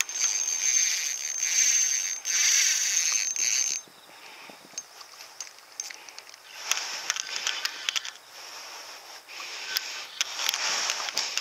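Spinning reel buzzing in bursts while a bass pulls on light line: a long burst in the first four seconds, then two shorter ones after a pause, with scattered ticks.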